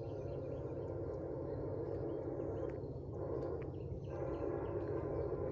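Distant Nathan K5LLA five-chime locomotive horn on a Norfolk Southern SD70ACe, blowing a long blast from about a mile down the line and easing for about a second near the middle. Small birds chirp close by.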